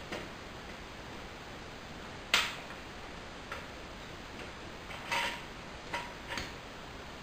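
Metal parts of a tricycle's indoor roller stand clicking and knocking as it is fitted under the rear wheel: one sharp knock about two seconds in, then a few lighter clicks near the end, over a steady hiss.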